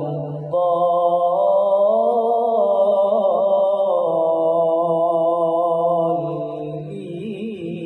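A man's voice reciting the Quran in Arabic in a slow, melodic chant, drawing out one long ornamented phrase from about half a second in until about six seconds, then going on lower and quieter.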